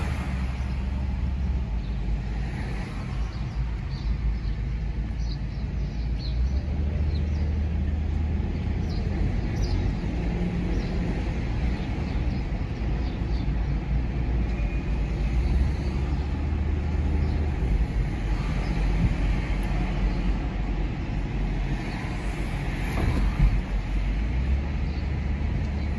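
Car cabin noise while driving slowly on a paved road: a steady low rumble of the engine and tyres, heard from inside the car.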